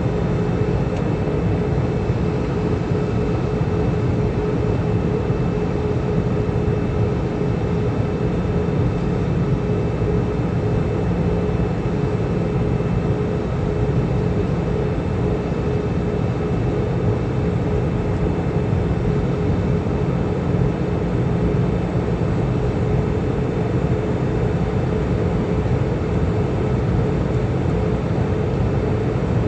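Airbus A320 cabin noise in flight: a steady roar of engines and airflow with a constant hum running through it.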